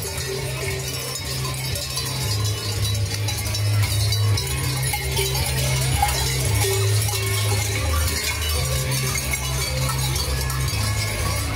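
Many large cowbells worn on Krampus costumes clanging and jangling without a break as the figures walk and run, with a deep bass booming underneath.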